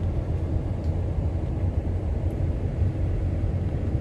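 Steady low rumble of a car on the move, with no break or change.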